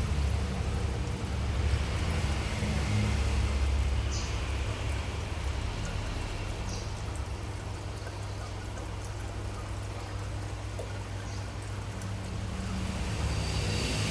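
Aquarium water running and trickling over a steady low hum from the tank's filter and pump.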